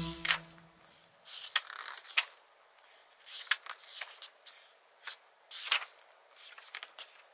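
Album photocards and paper pages being handled: short bursts of rustling and sliding with a few sharp clicks, in several separate handfuls.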